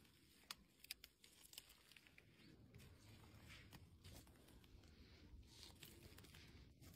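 Faint footsteps on a forest floor of dry twigs and needle litter, with a few small sharp twig snaps about half a second and a second in, then soft scattered crackling over a low rumble.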